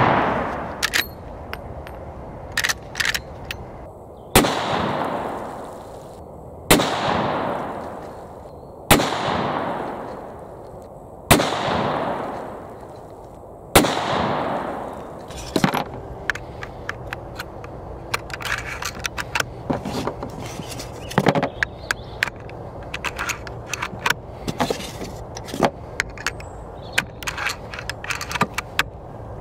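Five shots from a Marlin 1895 SBL lever-action rifle in .45-70 Government, about two and a half seconds apart, each followed by a rolling echo that fades over a second or so, with short clicks of the lever being worked between them. After the last shot, about halfway through, comes a long run of light metallic clicks and rattles as the rifle's lever and action are handled.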